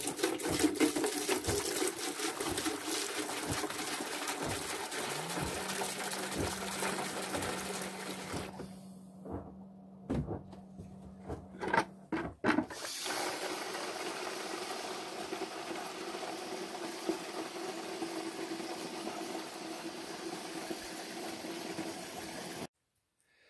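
Liquid pouring and splashing into a plastic bucket, first degreaser from a jug, then a steady stream from the faucet filling the bucket and foaming the degreaser. A steady low hum runs for a few seconds in the middle, and a few knocks come in a short break in the flow. The running water stops abruptly near the end.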